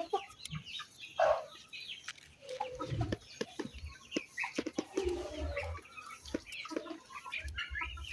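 Chickens clucking as they feed on fresh papaya seeds and peelings, with scattered short taps throughout.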